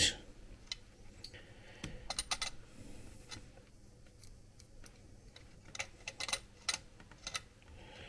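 Faint, irregular light metallic clicks and taps from an adjustable spanner being worked on a PL259 coax connector to tighten its body. They come in small clusters about two seconds in and again about six to seven seconds in.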